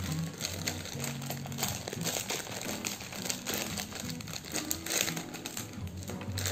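Plastic wrapper of a Megah Mie instant fried-noodle packet crinkling and crackling as it is pulled open and handled, over background music.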